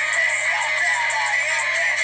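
Music: a dense, thin-sounding track with little bass, carrying a wavering melody line in what sounds like an electronically treated voice.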